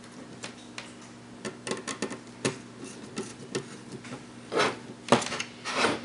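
Screwdriver working a screw terminal on a switching power supply's terminal strip: scattered small clicks and ticks, then three louder scraping strokes in the last second and a half.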